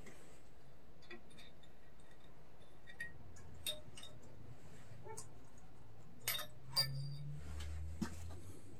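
Scattered light metallic clinks and clicks of tools and mower parts being handled during disassembly, a few small ones in the first half and the loudest few about two thirds of the way in.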